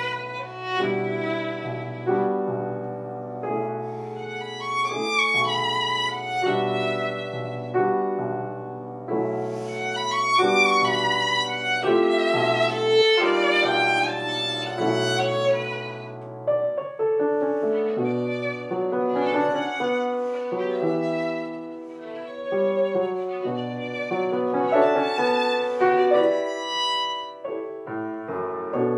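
Violin and grand piano playing a slow classical-style duet: the violin carries a melody of long, sustained notes over piano accompaniment. The piano holds a low bass line through the first half, which thins out a little past the middle.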